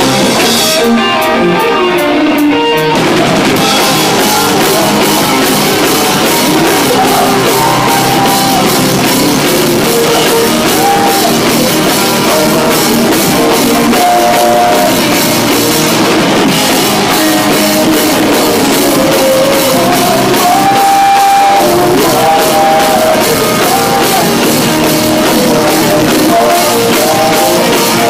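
A rock band playing loud and live: electric guitar, bass and drum kit, with a vocalist singing into a microphone. The high cymbal wash drops away for about two seconds near the start, then the full band carries on.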